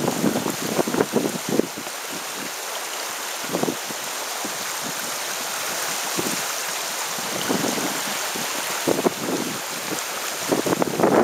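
Shallow creek water flowing over stones, a steady rushing hiss, with uneven low buffeting in the first two seconds and again near the end.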